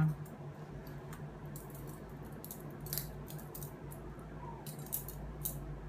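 Metal surgical instruments, towel clamps among them, clicking and clinking lightly as they are handled and laid together in a kit, in scattered short clicks over a steady low hum.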